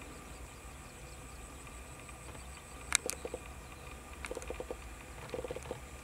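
Animal calls: a sharp click about three seconds in, then three short trains of rapid, low ticking calls, over a steady low hum.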